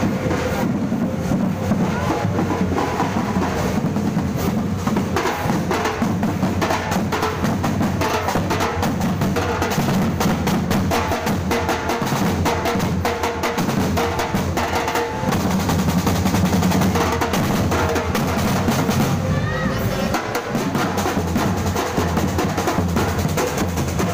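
Street drum band of snare and bass drums played with sticks, beating a dense, steady rhythm with rolls.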